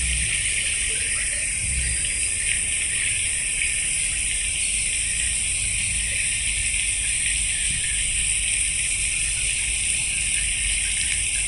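Steady hiss of running and splashing water from a garden fountain and its rock-lined stream, with a low rumble underneath.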